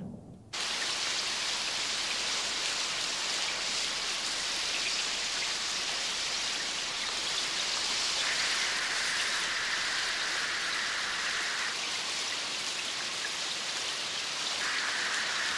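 Steady downpour of heavy rain, an even hiss that starts abruptly about half a second in and holds without letting up.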